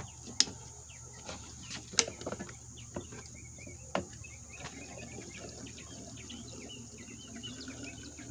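Gasoline trickling and gurgling from a plastic gas can's spout into a two-stroke leaf blower's fuel tank, with faint bubbling chirps. A few sharp clicks of the spout against the tank come in the first few seconds.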